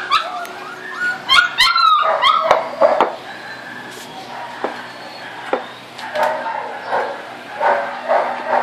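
Belgian Malinois puppies about six weeks old yipping and whimpering for their food, in a rapid run of high calls over the first three seconds, then quieter with a few clicks and shorter repeated sounds near the end.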